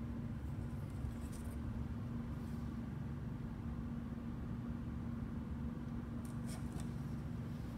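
Steady low room hum with a constant faint tone, and a few brief soft rustles of handling noise.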